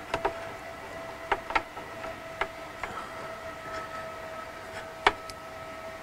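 Scattered light clicks and taps of metal parts being handled as an EDgun air rifle's puzzle-lock bolt connector is fitted back, the loudest click about five seconds in, over a faint steady hum.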